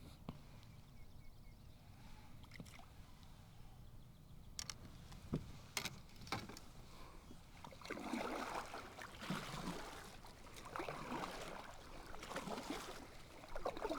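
Kayak on the water: a few faint knocks, then from about eight seconds in a run of water swishes and splashes roughly every second and a half, like paddle strokes.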